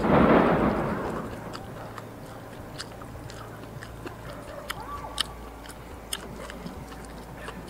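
A person eating braised donkey bones by hand, biting and chewing the meat off the bone. A loud rushing noise in the first second or so fades out, followed by quieter chewing with scattered small clicks and smacks.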